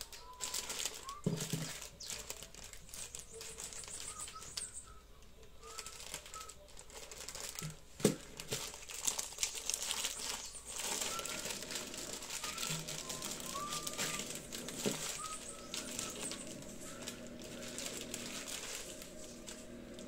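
Plastic packets of dried pasta being handled and rummaged through, crinkling and rustling in irregular bursts, with a sharp knock about eight seconds in.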